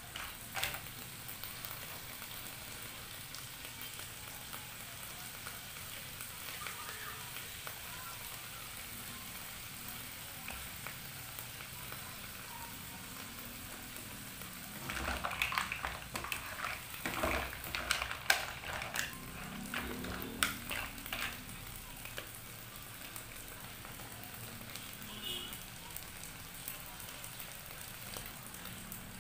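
Green mussels and vegetables frying with a steady sizzle in a non-stick frying pan. About halfway through there is a run of clatters and knocks, shells and utensil against the pan.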